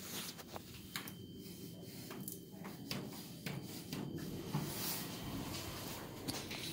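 Quiet inside an elevator car: a faint hiss with scattered soft clicks and knocks, among them the click of a car floor button being pressed about four seconds in.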